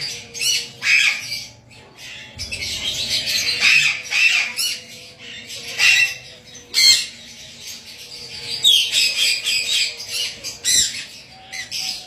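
Lovebird screeching in repeated harsh squawks as it is held in the hand and has its overgrown beak trimmed with a knife, distress calls at being restrained.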